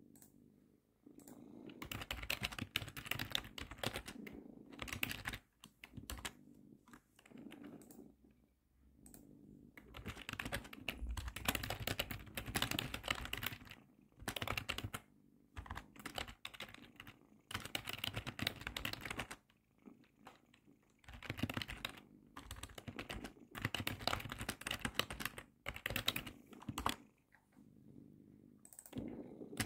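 Computer keyboard typing in stretches of a few seconds with short pauses between them, over the steady low purr of a domestic cat lying close by. The key clicks are the loudest sound.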